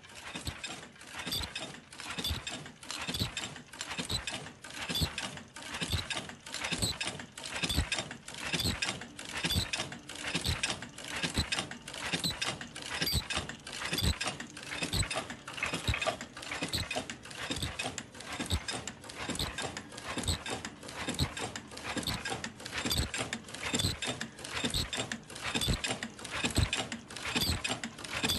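Senfeng FLK120 automatic face-mask making machine running and turning out masks, its mechanisms clacking in a fast, even, repeating rhythm.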